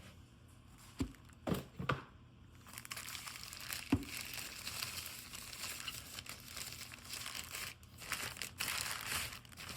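Packaging crinkling and rustling as a keyboard is unwrapped and handled, with a few knocks, the loudest about four seconds in.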